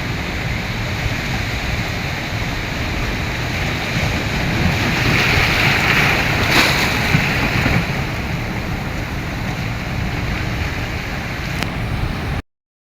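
Waves of a rough sea washing and breaking, with wind on the microphone; the wash swells louder around the middle, and the sound cuts out abruptly just before the end.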